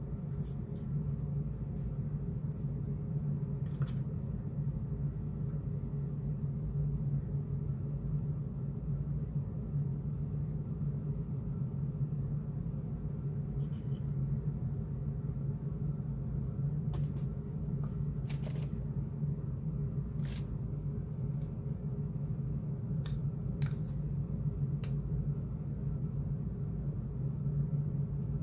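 Steady low background hum with a dozen or so brief, scattered clicks and taps from small plastic paint cups being handled.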